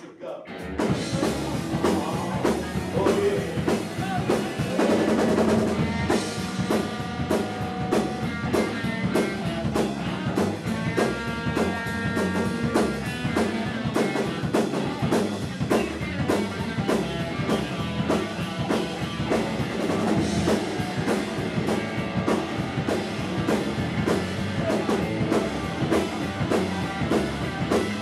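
Live punk rock band with electric guitars and a drum kit playing a fast song that kicks in about half a second in, after a brief pause, with a steady driving drum beat.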